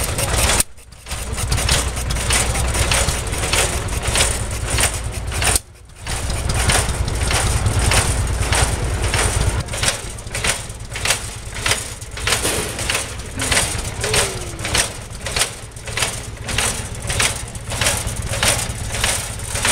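Machinery running with a steady low rumble, with a regular knock about twice a second from about ten seconds in; the sound drops out briefly twice near the start.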